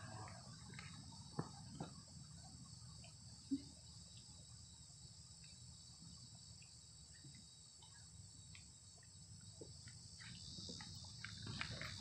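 Faint, steady high-pitched chirring of insects such as crickets, with a few soft knocks and faint footsteps that come in more often near the end.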